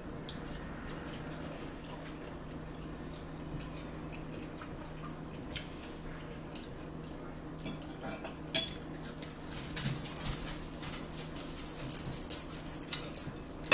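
People eating at a table: forks clicking and scraping against plates in scattered short knocks, more often in the second half, over a steady low hum.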